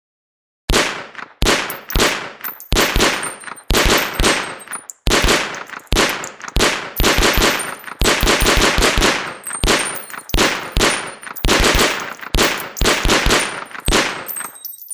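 MP 41 submachine gun firing a rapid string of short automatic bursts with brief pauses between them, and a thin high metallic ringing over the shots.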